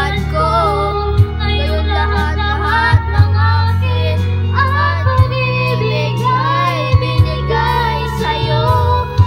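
A boy singing a Tagalog song over a karaoke-style backing track, the melody gliding between held notes above deep sustained bass notes and a few sharp beats.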